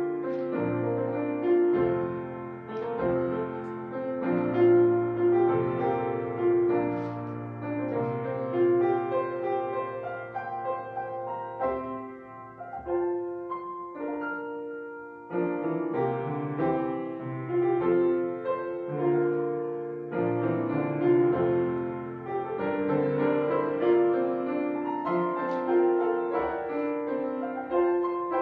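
Slow instrumental prelude music, with held notes and chords that soften to a brief lull about halfway through before picking up again.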